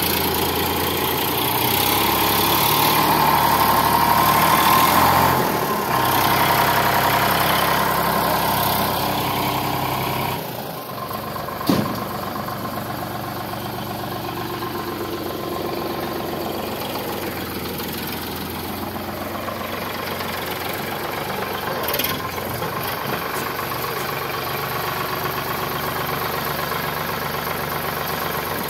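Sonalika DI 745 III tractor's three-cylinder diesel engine running, at higher revs for about the first ten seconds, then settling to a lower, steady idle. A single sharp knock sounds about twelve seconds in.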